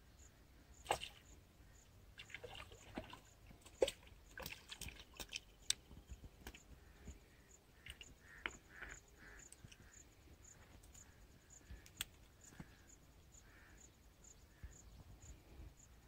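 Faint, scattered clicks and knocks of fishing tackle being handled at the water's edge, with a faint high pip repeating about twice a second.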